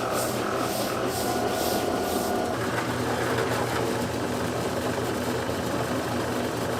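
Steady machine hum, like a kitchen motor or burner running. In the first two seconds a soft high hiss pulses about twice a second.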